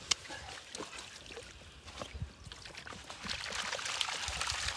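Water pouring and trickling out of a mesh keepnet of crucian carp as it is lifted out of a pond, with small splashes first and a steady pouring about three seconds in.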